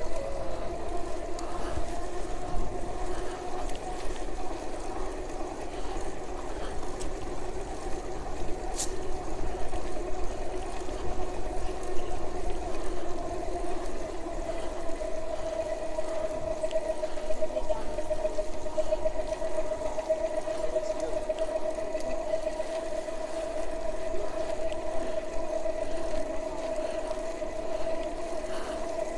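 Alba 500-watt e-bike conversion motor whining at a steady pitch while riding, with a low rumble underneath.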